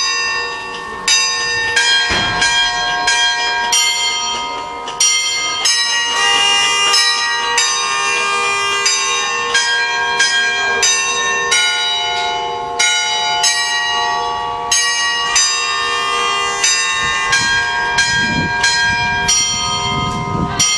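Church tower bells ringing, several bells of different pitch struck one after another about once or twice a second, each ring running on under the next.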